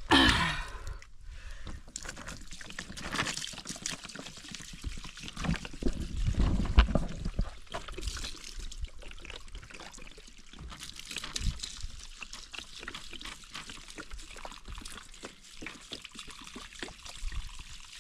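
Water being poured onto plants in soil, trickling and splashing in uneven gushes.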